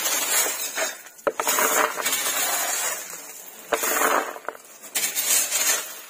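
A small hand shovel scraping and scooping crushed stone chips: repeated bursts of gravel crunching, with stones clinking as they are tipped into plastic basins.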